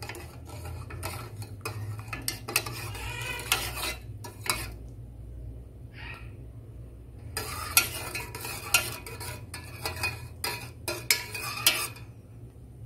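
A metal spoon stirring sugar into hot water in an enamelled pot, scraping and clinking against its sides, with a pause of a couple of seconds in the middle before the stirring picks up again.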